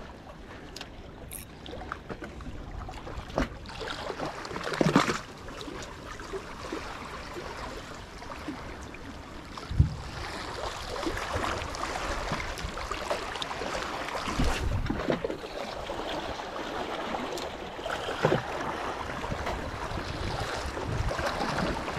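Sea water washing and wind buffeting the microphone at a jetty, a steady rushing noise with several short louder swishes or splashes scattered through it.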